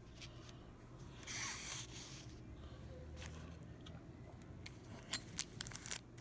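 Faint handling of coins in plastic flips: a soft rustle about a second in, then a quick run of sharp clicks and taps near the end as the flips are moved on the mat.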